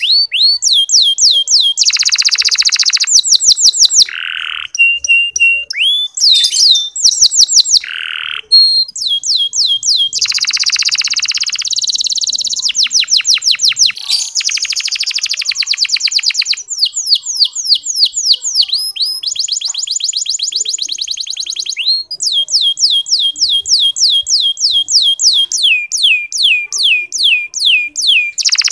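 Domestic canary singing without a break in the fine, rapid chattering style called "ngeriwik". Runs of quick, repeated down-slurred whistles alternate with several buzzy rolls a second or two long, and there is a brief steady whistle a few seconds in.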